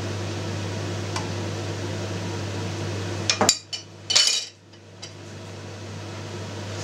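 A metal spoon and a glass oil bottle clink as they are put down on the kitchen counter: a few sharp clinks a little past the middle, then another short rattle, over a steady low hum that drops away after them.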